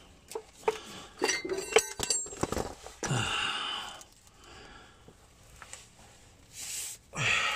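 Metal hand tools clinking and clattering, a quick run of sharp clinks with brief ringing in the first couple of seconds, then a loud breathy exhale about three seconds in and a shorter one near the end.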